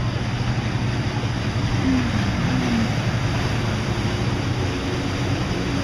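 Personal watercraft (jet ski) engine running close by with a steady drone, over the rush of water from its wake.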